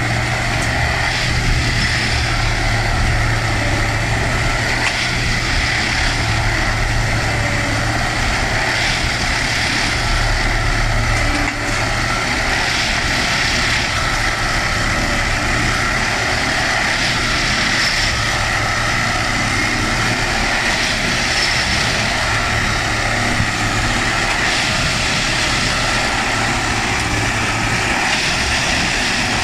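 Railway ballast tamping machine working the track: its diesel engine runs steadily with a high steady whine over it, and faint knocks come every few seconds as the tamping units work the ballast.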